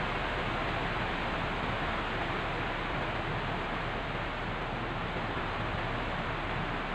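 Steady, even hiss of background noise with no other sounds standing out.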